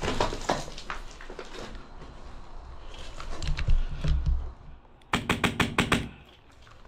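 A Wolverine MTW HPA airsoft rifle fires a quick burst of about eight shots in under a second, near the end. Before the burst there are scattered knocks and rustling of movement over rubble.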